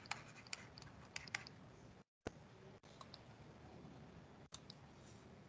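Faint, sharp clicks at a computer as a pen-and-menu drawing tool is worked. There are several in the first second and a half, one louder about two seconds in, and a couple more near the end. They sit over low room hiss that cuts out to dead silence for a moment just before the louder click.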